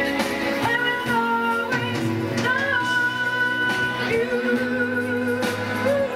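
A woman singing a melody into a microphone with long held notes, over amplified instrumental backing music.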